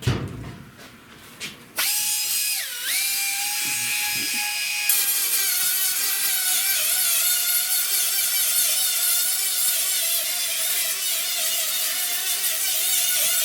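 Handheld power grinder starting up about two seconds in and running steadily with a high whine, its pitch dipping briefly as it bites into the metal; it is grinding rust off the car body sheet metal down to clean bare metal. A knock sounds at the very start.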